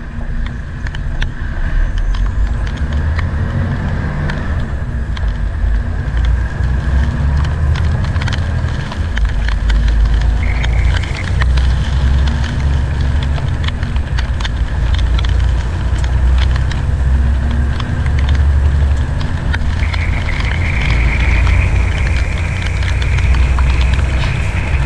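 A Volvo VNL860 semi-truck heard from inside the cab while driving on wet roads: a steady low engine rumble that grows somewhat stronger partway through, with tyre hiss and scattered clicks of rain hitting the windshield.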